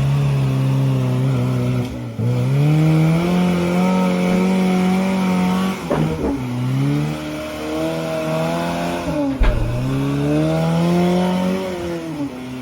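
Off-road vehicle engine revving hard under load. Its pitch climbs and then falls sharply three times, about two, six and nine and a half seconds in, with a thump at the last drop.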